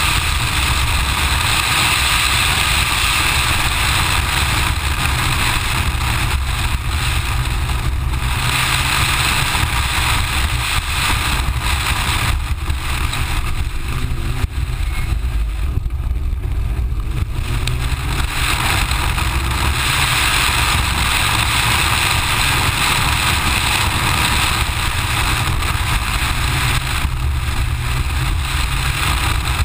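Mitsubishi Lancer Evo IX rally car driven at speed, heard from a camera mounted on the outside of the body: its turbocharged 2.0-litre four-cylinder engine runs under load under a heavy rush of wind on the microphone. The sound drops away briefly a few times.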